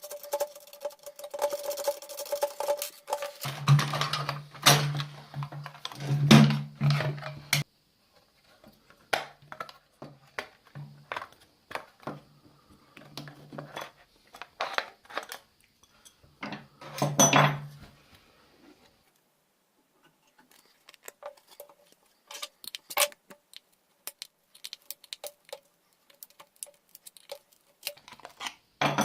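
Metal and plastic parts of a satellite receiver clicking and clattering as it is taken apart by hand, with a few short stretches of low hum.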